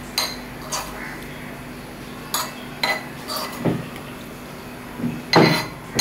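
A metal spoon clinking and scraping on a plate as food is scooped up: scattered light clinks, with a louder cluster near the end.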